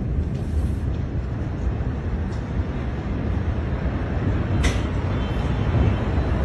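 Steady low rumbling noise outdoors, with one short sharp click about two-thirds of the way through.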